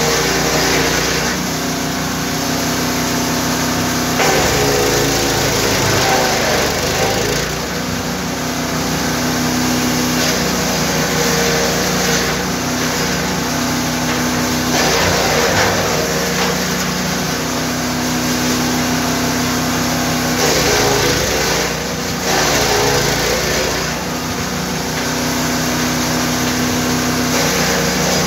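GTM GTS 900 wood chipper's 9 hp engine running steadily, with wood being fed through and chipped: several times a rush of shredding noise rises over the engine and its pitch dips and wavers under the load.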